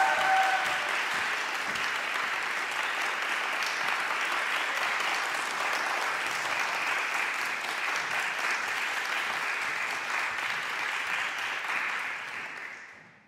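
Concert-hall audience applauding steadily, dying away over the last second. Right at the start, a single held call rises above the clapping.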